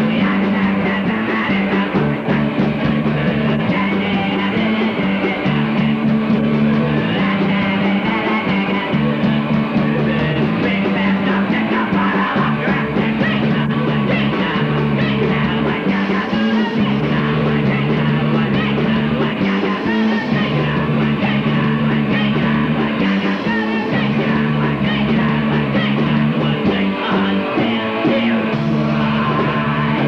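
Live punk rock band playing loud and without a break: electric guitars, bass and drums, with a singer on the microphone.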